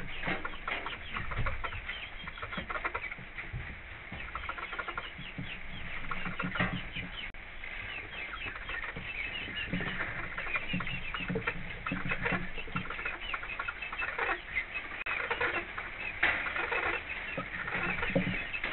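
Domestic hens clucking and chattering in the coop, many short calls overlapping throughout.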